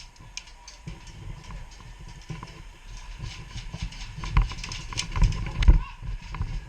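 Irregular clicks and knocks of an airsoft skirmish, loudest between about four and six seconds in.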